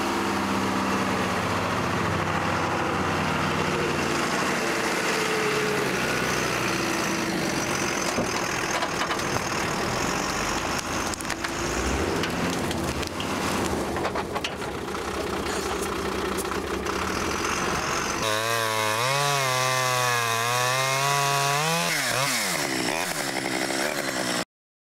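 A truck engine running, then a chainsaw running and cutting a fallen pine, its pitch wavering up and down as it works through the wood. The sound cuts off suddenly near the end.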